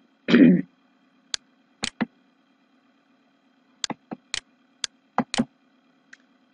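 Computer mouse clicks: about ten short, sharp clicks at irregular intervals, in a cluster around the middle and later part, as a right-click menu is opened and the slideshow moved on.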